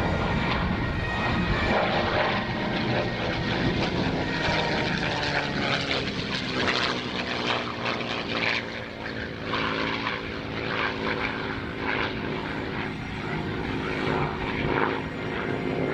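P-51D Mustang's Packard-built Merlin V12 engine and propeller on a low fly-by pass. The engine note drops in pitch as the plane goes past, a few seconds into the pass.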